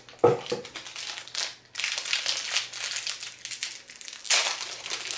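Packaging crinkling and rustling as items are handled and unwrapped, with a soft knock just after the start and louder rustling from about two seconds in.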